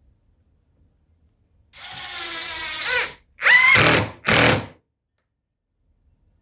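Power drill driving screws into subfloor in three trigger pulls: a run of about a second and a half whose pitch climbs at the end, then two short, louder bursts.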